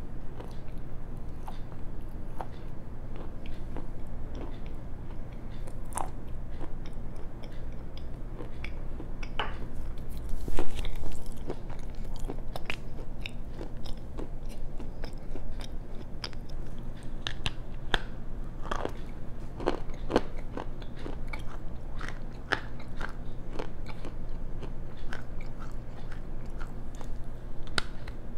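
Close-up crunching of black slate and clay stone being bitten and chewed, in sharp, irregular cracks and grinding. There is a louder rustling burst about ten seconds in, over a steady low hum.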